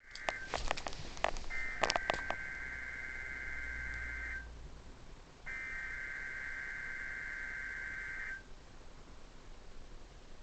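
NOAA Weather Radio SAME digital header, heard from a weather radio's speaker: two bursts of high two-tone data buzz, each about three seconds long with a one-second gap, signalling the start of a Required Weekly Test. A cluster of sharp clicks comes in the first two seconds, and a faint hiss follows the bursts.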